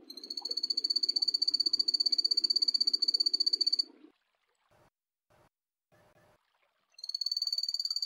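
Phantasmal poison frog (Epipedobates tricolor) calling: a high, rapid trill lasting nearly four seconds. After a pause of about three seconds, a second trill begins.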